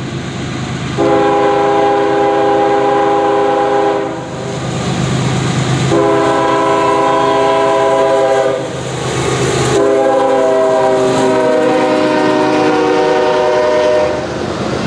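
Air horn of an approaching GE Evolution Series (GEVO) diesel locomotive sounding three long blasts, the last one dropping in pitch partway through as the locomotive passes. Under and between the blasts the locomotives' diesel engines run, and near the end the stack cars roll by on the rails.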